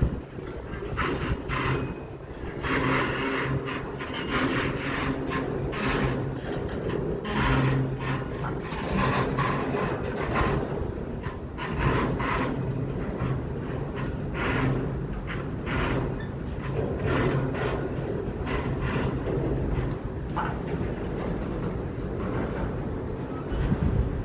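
CSX freight train rolling past: a steady low rumble of cars on the rails, with repeated irregular bursts of high-pitched metallic scraping from the wheels.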